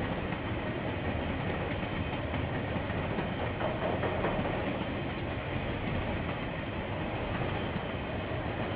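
KiwiRail train running past on the track: a steady rumble of wheels and wagons, heard through a security camera's microphone.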